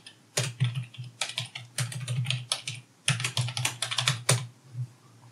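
Computer keyboard typing in quick runs of keystrokes, in three bursts that stop a little after four seconds in.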